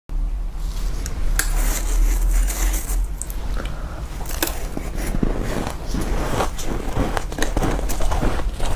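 Powdery freezer frost being bitten and chewed: irregular sharp crunches and crackles follow one another closely. A steady low hum runs underneath.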